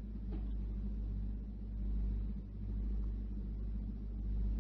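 Steady low hum with faint hiss, the background of an old talk recording during a pause in the speech, rising and falling gently in level.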